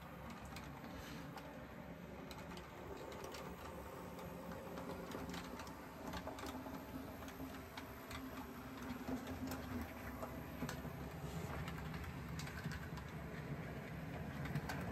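H0-scale model train, a BR 211 diesel pushing its coaches, running along the track: a steady small-motor hum with scattered light clicks.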